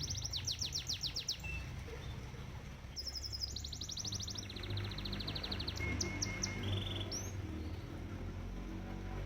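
Domestic canary singing in fast trilled phrases of rapidly repeated high notes, pausing between phrases, over a steady low rumble of flowing koi-pond water.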